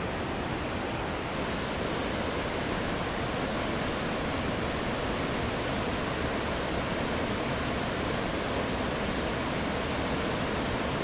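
Steady rushing noise of water pouring through a river dam's spillway gates.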